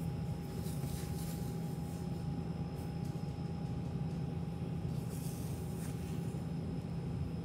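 Steady low mechanical hum with a thin constant whine above it, and a few faint scratchy brushing sounds of a comb and hand moving through a dog's thick fur.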